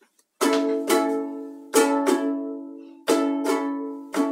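Black electric guitar strummed, its chords coming in pairs of strokes that ring out and fade before the next pair, starting about half a second in.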